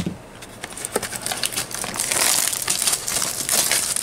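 Plastic shrink wrap crinkling and crackling as it is peeled and crumpled off a trading-card booster box, getting louder about halfway through.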